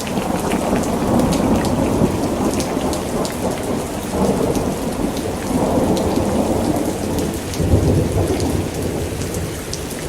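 Heavy rain falling steadily, with individual drops ticking sharply on a nearby surface and low rolling rumbles of thunder swelling and fading, strongest about three quarters of the way through.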